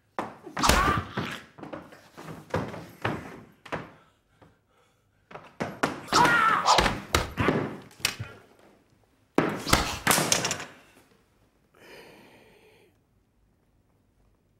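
Film fight sound effects: blows, throws and bodies hitting a wooden floor, in three bursts of thuds and slams, about a second in, around six seconds in and just before ten seconds, with shouts mixed into the first two.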